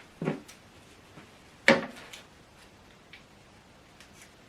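Two short knocks with a rustle, from a power cable being handled and its plug pushed into a socket, with a few faint ticks between.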